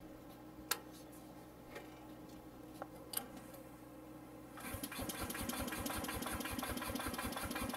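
A few light clicks, then about four and a half seconds in the starter of the P&H Bug welder's Onan CCK engine starts cranking it, in rapid, even pulses. The engine is not yet firing after sitting a while.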